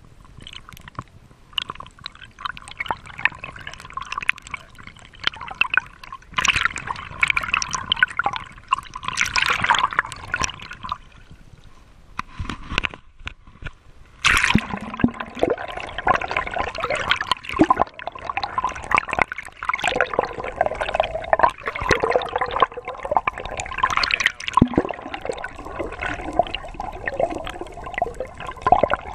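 Sea water sloshing, gurgling and crackling around a camera held at and just under the surface, with splashy bubbling that grows louder about fourteen seconds in as the camera breaks the waterline.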